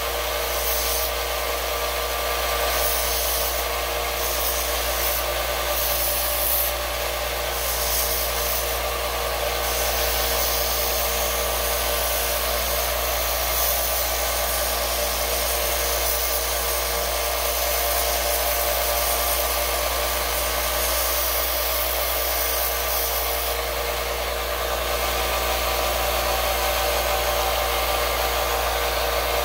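Small benchtop belt sander running steadily, with a wooden handle held against the belt so that a gritty rubbing hiss comes and goes over the motor's hum, several times in the first ten seconds and again later.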